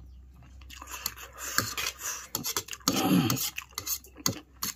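Close-miked eating of chow noodles: chewing and slurping, with sharp clicks of cutlery against the plate and a brief voiced hum about three seconds in.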